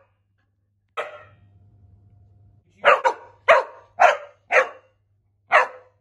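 Cocker spaniel barking in short sharp barks, one about a second in and then a quick run of several from about three seconds in: demand barking for treats.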